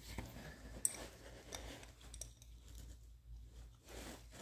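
Faint metal clicks and scrapes of an adjustable wrench working a transmission drain plug loose, with one sharper click about a second in.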